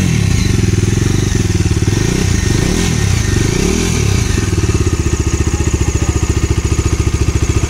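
Bajaj Dominar 250 BS6's single-cylinder engine, heard at its twin-port exhaust, revved in a few short throttle blips during the first four seconds or so, then idling steadily.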